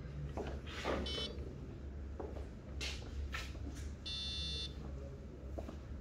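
Billiard balls knocking together and against the cushions after a shot on a carom table, several sharp knocks with the loudest about a second in. Two electronic beeps cut through: a short one about a second in and a longer one about four seconds in, over a steady low hum.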